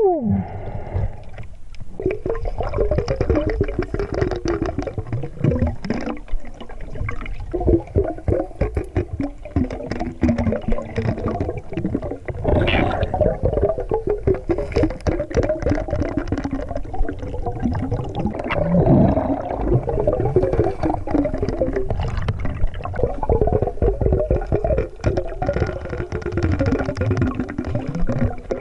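Muffled underwater sound of a flowing river, heard through a submerged camera: a steady wash of rushing, gurgling water with many small clicks and wavering tones.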